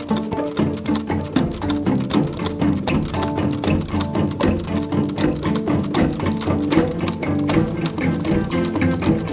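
Background music: a lively piece of plucked and bowed strings with a deep bass line and a steady beat.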